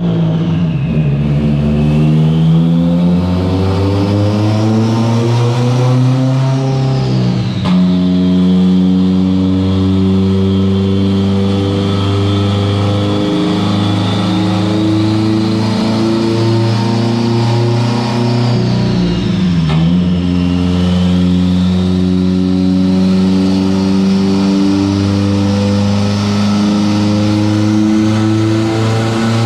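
Turbocharged Subaru STI flat-four engine under load on a chassis dyno. It climbs in revs for several seconds, drops suddenly, holds steady revs, dips again about two-thirds of the way through, then climbs slowly once more.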